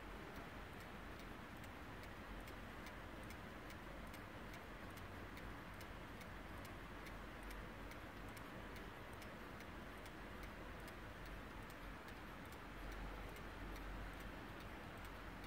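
1972 Warmink 8-day mantel clock movement ticking faintly, with a quick, even beat of a few ticks a second.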